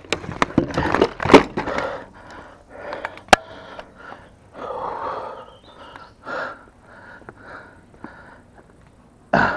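A rusty, waterlogged bicycle clatters and scrapes on wooden boardwalk planks for the first couple of seconds after being hauled out of the water. Then come heavy panting breaths, about one a second, and a loud short burst just before the end.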